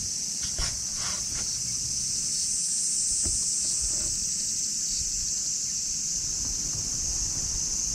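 A steady, high-pitched outdoor insect chorus runs throughout. A few soft knocks and brushing sounds come in the first second and a half and once more about three seconds in, as a cat's body rubs against the camera.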